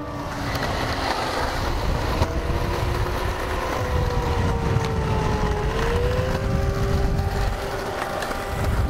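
Skateboard wheels rolling on smooth concrete: a steady low rumble with a thin whine that slowly falls in pitch, then rises again about five seconds in.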